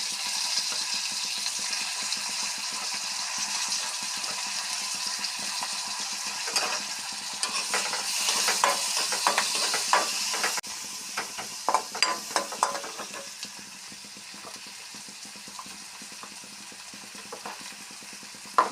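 Chopped onion sizzling in hot oil in a pan, with a spatula clicking and scraping against the pan as it is stirred, mostly from about six to thirteen seconds in. The sizzle drops suddenly about ten seconds in and stays quieter, and a single sharp knock comes near the end.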